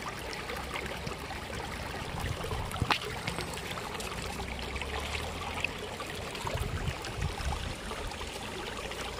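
Shallow stream rippling and babbling over stones, a steady rush of running water. A single sharp click comes about three seconds in.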